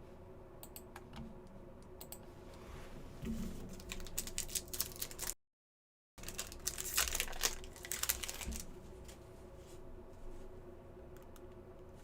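Scattered sharp clicks like keyboard typing, then runs of crinkling and tearing, typical of a trading-card pack's foil wrapper being ripped open and handled. About halfway through, the sound cuts out completely for under a second.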